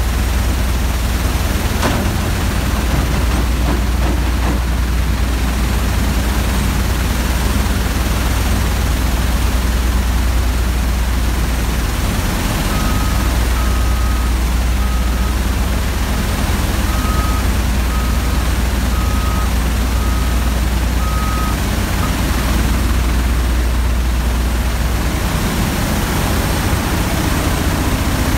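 Oilfield shale shaker on a Kodiak Total Clean mud system running with a steady, loud low drone and rumble as drilled cuttings travel across its vibrating screens. For about ten seconds in the middle, a string of short high beeps sounds, roughly one a second.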